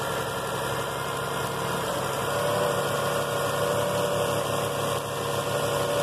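1999 Lexus RX300's 3.0-litre V6 idling steadily with the hood open. The engine is running on a loose main ground strap for the engine computer, the fault behind its no-start.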